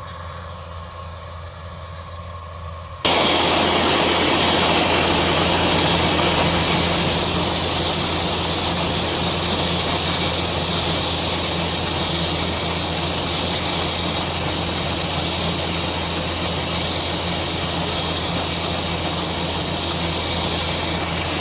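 Rice combine harvester running as it cuts the crop: a steady engine and threshing drone with a constant low hum. About three seconds in it becomes much louder and fills out with a wide, even hiss, heard from the operator's seat right above the reel.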